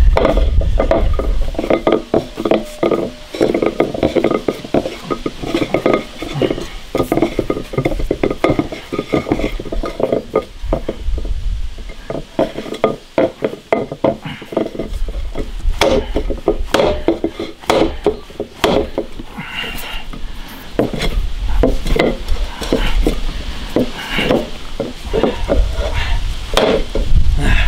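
Hands mixing and kneading flour-and-water dough in a large glazed ceramic bowl: irregular soft knocks and rubbing of hands and dough against the bowl.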